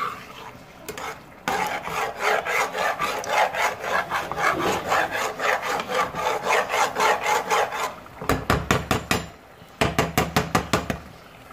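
A slotted metal spoon scraping and stirring thick carrot halwa against the bottom and sides of a non-stick saucepan in quick, rhythmic strokes, as the halwa is roasted (bhunai) in ghee and kept from catching on the bottom. Near the end come two short runs of faster, sharper scrapes.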